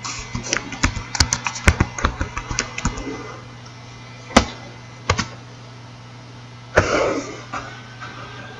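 Computer keyboard typing a username and password in a quick run of key clicks, then two single clicks a little apart. About seven seconds in comes a short, noisy burst of sound.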